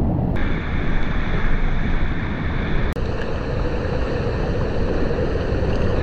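Loud rushing roar of whitewater and falling water on a river run. It changes character abruptly twice, about a third of a second in and near the middle.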